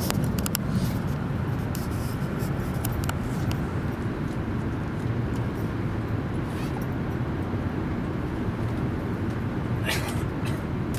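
Steady running rumble of an E5 series Shinkansen heard inside the passenger cabin, with a few faint clicks and a brief higher-pitched sound near the end.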